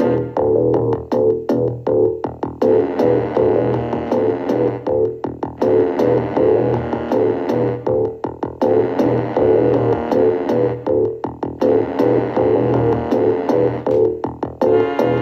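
Electronic music: a synthesizer and keyboard track with sustained chords chopped into a fast, regular stuttering rhythm.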